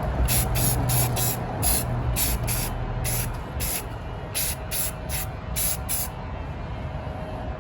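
Aerosol spray can of primer hissing in a quick series of short bursts, about fifteen of them, that stop about six seconds in.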